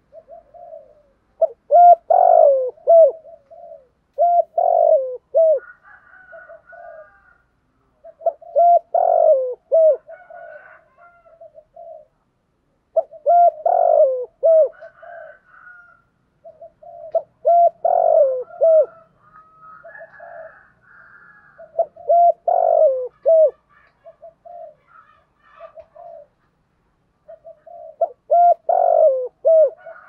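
Spotted dove cooing in the deep 'giọng thổ' voice: seven phrases of several low coos each, spaced a few seconds apart, with softer single coos between. Faint higher chirps from other birds sound between the phrases.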